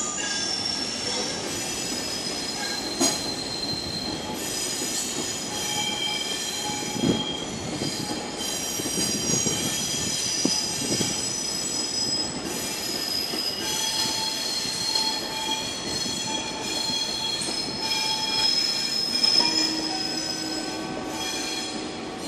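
Passenger train coaches passing, their wheels squealing on the rails in several high-pitched tones that shift and overlap, with occasional knocks from the running gear.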